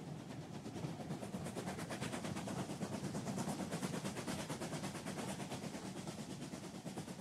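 A train running along the line, heard as a fast, even clatter of wheels on the rails that eases off toward the end.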